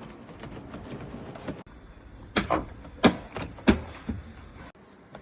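A series of about five or six sharp knocks or taps, irregularly spaced a fraction of a second apart, the loudest two in the middle of the run.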